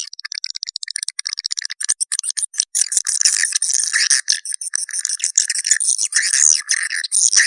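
Swiftlet call-sound recording, the kind played to lure swiftlets: fast, dense, high-pitched chirping and twittering mixed with rapid clicks.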